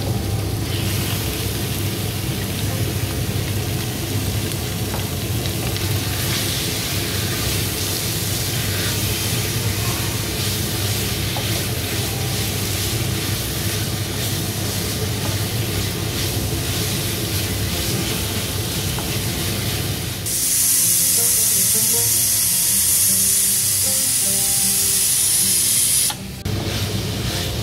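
Meat sizzling as it fries in hot oil in a kadhai with onions and spices. About twenty seconds in the sizzle turns suddenly louder and brighter for about six seconds, then drops back.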